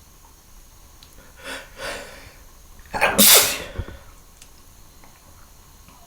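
A person sneezing: two short breathy sounds build up, then one loud sneeze about three seconds in.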